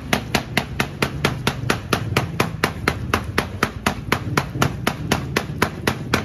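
Wet hand slaps, about four a second, as a palm repeatedly claps over a car radiator's outlet while a hose flushes water through it and water sprays out. This pulses the flow to push out built-up dirt from the clogged core. A steady low rush of water runs underneath.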